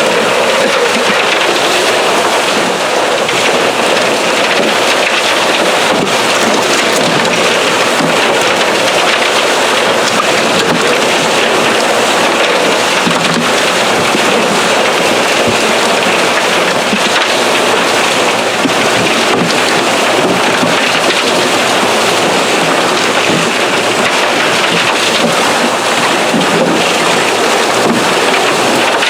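Steady rushing of water and muddy gravel slurry washing through a diamond recovery plant's chute, with a few faint knocks scattered through it.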